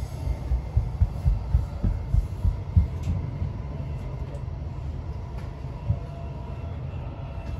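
Regional express train running at speed, heard from inside the passenger car: a steady low rumble, with a run of heavy low thumps over the first three seconds. A freight train of hopper wagons passes close alongside on the next track.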